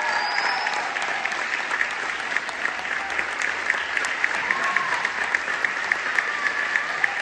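Audience and choir applauding: a dense patter of many hands, with one pair of hands close by clapping steadily at about three claps a second.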